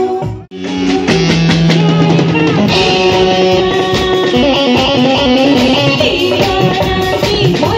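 Live band playing a Hindi film song, with guitar and a drum kit. The sound drops out sharply for a moment about half a second in, at an edit, then the music carries on.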